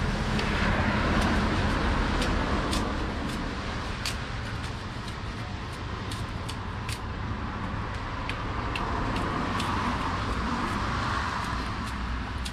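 Road traffic going by: the rush of passing vehicles over a low steady rumble, swelling about a second in and again near the end, with small sharp clicks scattered throughout.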